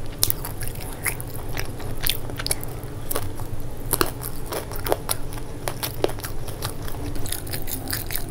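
Close-miked eating: a fried momo's crisp pastry shell bitten and chewed, an irregular run of sharp crunching crackles over a low steady hum.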